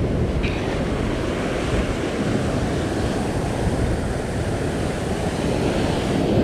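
Small waves breaking and washing up on a sandy beach, mixed with wind buffeting the microphone as a steady low rumble.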